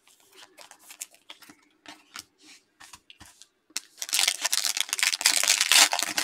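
Trading cards being handled with soft clicks and slides, then about four seconds in a foil trading-card pack wrapper loudly crinkling and tearing as it is ripped open.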